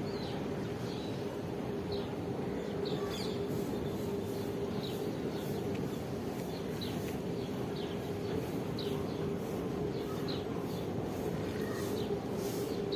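Small birds give short, high chirps every second or so over a steady rumbling background with a constant low hum.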